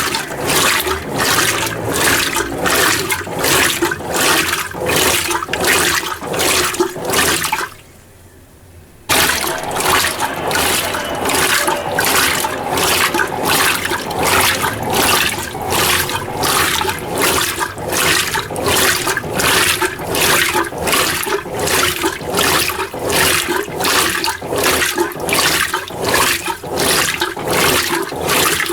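Mueller Energy 8 kg top-load washing machine agitating a small load in low water: rhythmic swishing and sloshing of water and clothes. It stops for about a second, about eight seconds in, then resumes.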